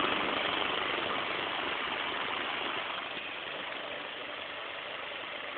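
1920s Emerson Seagull single-speed electric fan running: a steady motor hum and whir of moving air, easing a little quieter partway through.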